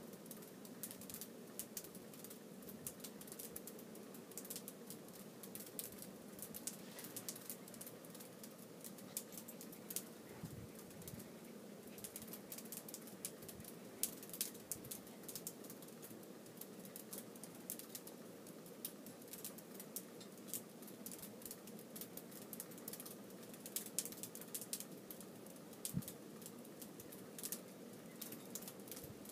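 Cocker spaniel puppy scampering on carpet: faint, irregular light ticks and pattering from its paws, over a steady low room hum.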